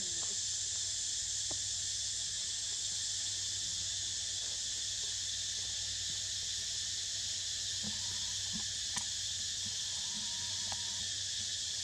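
Steady high-pitched drone of a tropical forest insect chorus, even and unbroken throughout, with a few faint ticks in the second half.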